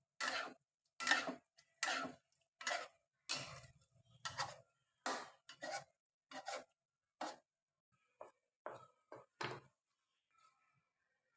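Cooking utensil scraping and stirring in a pan: about fourteen short strokes at a bit over one a second, growing weaker and stopping about ten seconds in.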